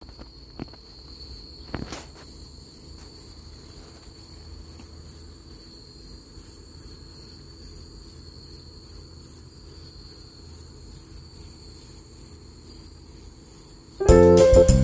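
Crickets chirping outdoors: a steady, rhythmic pulsing of about three chirps a second over a continuous high insect hum, with a couple of faint clicks about two seconds in. Loud keyboard music starts abruptly near the end.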